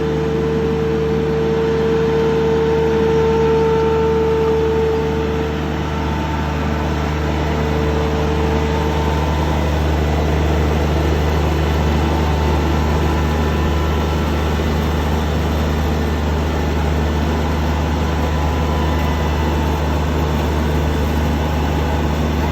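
Lawn mower engine running steadily with a low hum, and a higher whine that fades away over the first several seconds.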